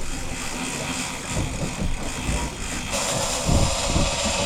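Low rumble of a fishing boat's engine under a steady noisy wash. About three seconds in, a louder hiss joins.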